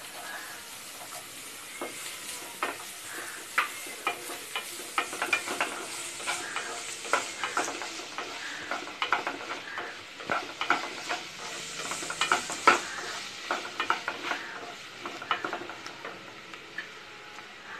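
Chopped green beans, carrot and capsicum sizzling in hot oil in a nonstick pan while a spatula stirs them, with frequent irregular scrapes and taps of the spatula against the pan.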